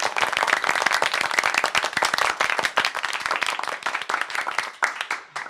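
Audience applauding: many people clapping at once in a dense, even patter, which eases slightly and then cuts off suddenly at the end.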